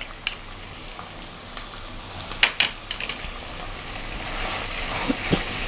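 Sliced onions and tomatoes sautéing in oil in a nonstick pan, a steady sizzle with a few light clicks. Near the end a wooden spatula stirs the vegetables and the sizzle grows louder.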